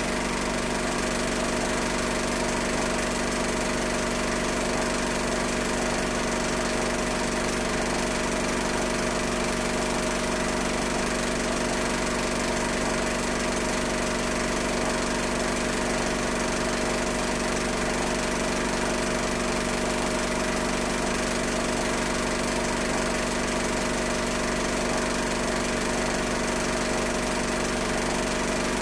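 Steady machine-like hum over an even hiss, unchanging throughout.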